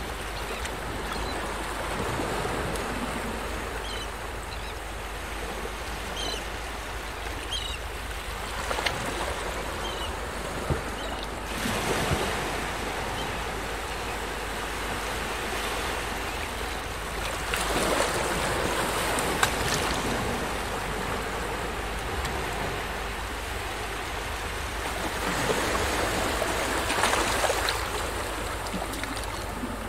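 Ocean waves washing in, a steady rush that swells and fades every several seconds, with a few faint high chirps in the first several seconds.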